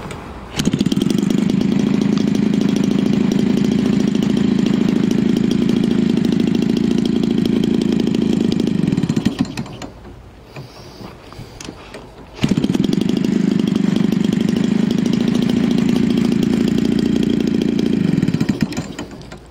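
Homelite 30cc two-stroke engine, converted for an RC airplane and turning a propeller, run up sharply to high revs and held steady for about eight seconds, then winding down. About twelve seconds in it is run up again just as suddenly, held for about six seconds, and winds down again near the end. The owner calls it dialed in and very strong.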